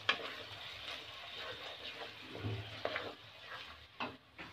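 Wooden spatula stirring peas and onion-tomato masala around a metal kadai, scraping the pan a few times over a low frying sizzle that fades near the end.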